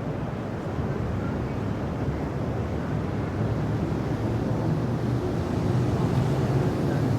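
Steady low rumble of riverside city ambience, with passing boat engines and traffic blended together, growing a little louder near the end.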